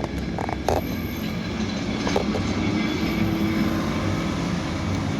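A steady low rumble of background noise, with a few light clicks in the first couple of seconds.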